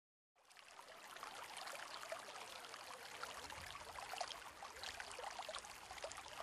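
Faint water sound effect: a steady hiss of running or falling water, with many small drops ticking through it, starting about half a second in.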